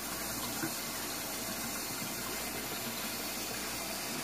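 Kitchen faucet running into a stainless steel sink, a steady hiss of water.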